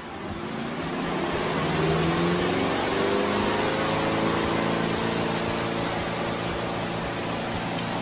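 Spin-dryer motor of a Giantex portable twin-tub washing machine starting its spin cycle on a half load of wet clothes. A hum rises in pitch and loudness over the first two or three seconds as the drum spins up, then runs steady over a whirring hiss.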